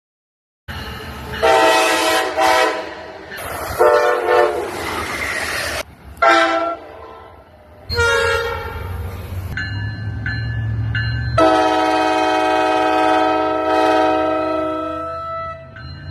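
Train horns sounding in a series of blasts, some short and one long near the end, each a chord of several pitched tones; one short blast about six seconds in drops in pitch as it passes. The sound cuts in abruptly under a second in.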